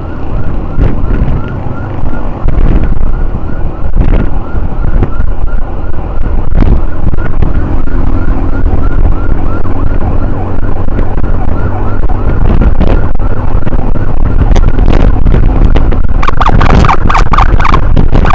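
Emergency siren sounding a fast yelp, its pitch rising and falling a few times a second, over heavy wind and road rumble from a moving motorbike. Near the end it becomes much louder and sharper.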